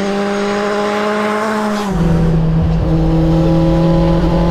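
Suzuki Bandit inline-four motorcycle engine in a small van, heard from inside the cabin, running under load with a high steady note that creeps up in pitch. About two seconds in the note drops to a lower pitch and holds steady.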